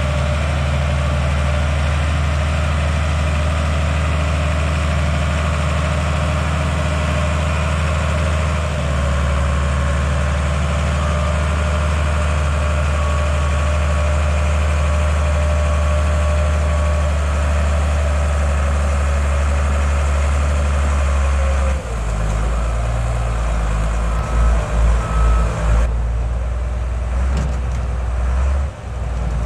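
Heavy vehicle engine running steadily while pulling a truck along. Its note drops about three quarters of the way through, then rises and falls several times in quick succession.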